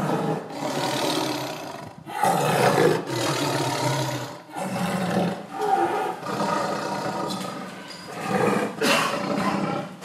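A big cat roaring again and again: about six calls in a row, each a second or two long, with short breaks between them.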